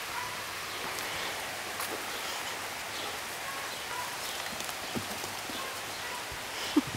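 Steady hiss of light rain, with scattered small clicks and a few faint short chirps, and one sharp thump near the end.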